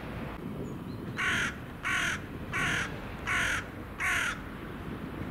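Hooded crow cawing five times in an even series, harsh calls roughly two-thirds of a second apart, over a low steady background rumble.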